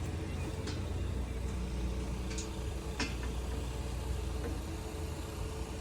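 A steady low engine hum, like a vehicle idling, with a few sharp clicks and knocks from metal parts being handled as a new AC condenser is fitted.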